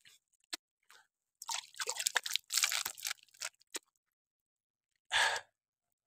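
Water splashing as hands scoop it from a plastic basin onto the face: scattered drips, then a run of quick splashes, and one louder short burst about five seconds in.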